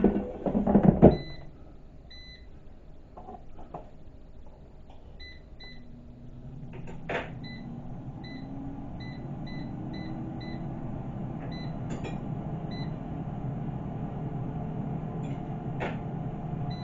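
An air fryer's control panel beeps as its buttons are pressed to set it running for another two minutes. Its fan then starts about six seconds in and runs steadily. A brief clatter comes in the first second.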